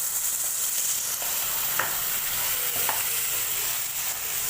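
Okra sizzling in hot oil in a cooking pot, with a couple of short spoon scrapes against the pan about two and three seconds in.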